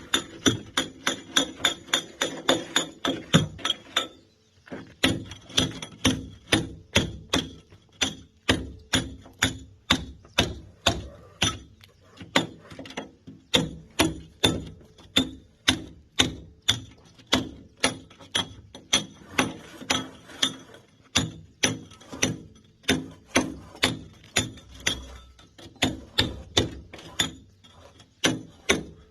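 Hand hammer striking a steel chisel to break concrete, each blow ringing with a metallic tone. A quick run of about three strikes a second stops briefly about four seconds in. The strikes then go on steadily at about two a second.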